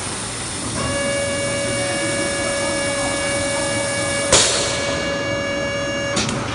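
FD-30S injection blow moulding machine running a cycle on 500 ml HDPE pesticide bottles, two cavities at a time. A steady machine whine sets in about a second in over the running noise. About four seconds in comes a sudden loud burst of noise, and a few clicks follow near the end.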